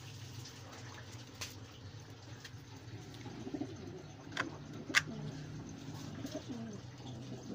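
Domestic pigeons cooing softly in a loft, low wavering coos over a steady low hum, with two sharp clicks about four and five seconds in, the second the loudest.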